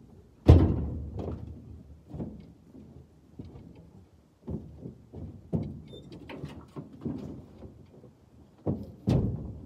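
Firewood pieces being tossed and stacked while loading, making a string of irregular wooden thuds and knocks. The heaviest lands about half a second in, another heavy one near the end, and about a dozen lighter knocks fall between.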